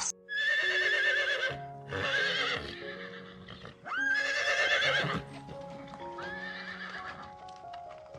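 Four wavering high animal calls, each about a second long and each rising before it trembles, over background music.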